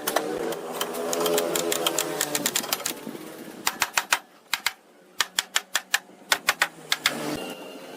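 Quick runs of sharp taps, several a second, with a short pause near the middle. A pitched hum sounds under the taps for the first few seconds.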